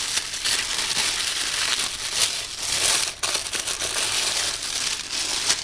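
Sheet of tissue paper crinkling and rustling steadily as hands lift and unfold it.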